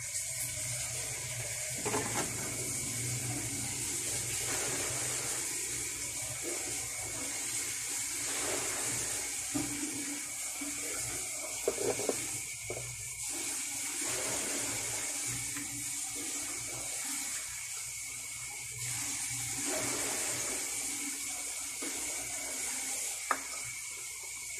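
Pininyahang manok (chicken and pineapple stew) simmering in a wok, a steady sizzling, bubbling hiss. A metal lid knocks against the wok about halfway through as it is put on.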